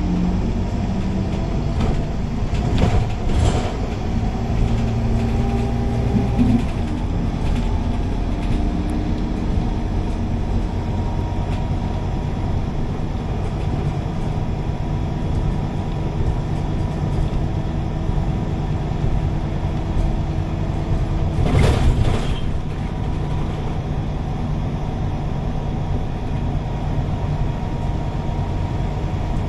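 Scania K280UB city bus heard from inside the cabin while driving along the road: a steady engine and drivetrain hum with road noise. The engine note steps to a new pitch about six seconds in, and there are brief louder bursts of noise near three seconds and about twenty-two seconds in.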